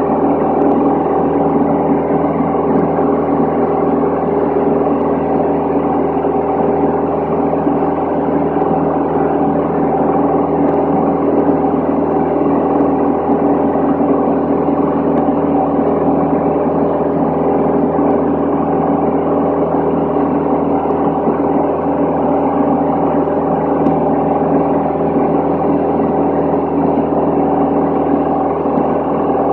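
Steady drone of a Van's RV-10 light aircraft's piston engine and propeller in flight, heard inside the cabin together with the rush of airflow. It is an even hum of several steady tones over a hiss, with no change in pitch or level.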